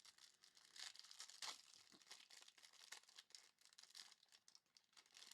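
Faint crinkling and tearing of a trading card pack's plastic wrapper as it is ripped open by hand, an irregular crackle with a few sharper rips.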